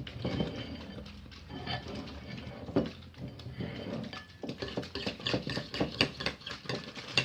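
A spoon scraping and clinking against a bowl while stirring glue and face cream into slime; the scrapes come faster and closer together from about halfway through. The sound is terrible, because the spoon is not a rubber one.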